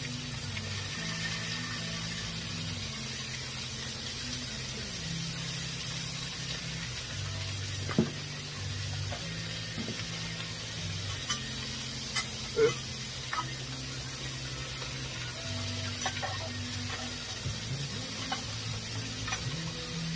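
Strips of flank steak sizzling on a hot Blackstone flat-top griddle as sauce is poured onto them. A few sharp clicks of the spatula on the steel top come about eight seconds in and again around eleven to thirteen seconds in.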